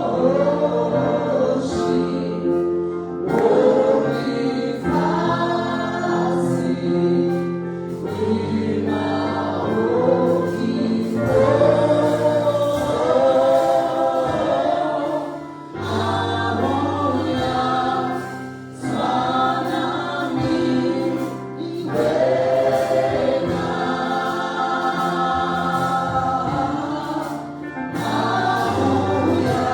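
Church choir singing a gospel worship song, with sustained low accompanying notes that change every couple of seconds.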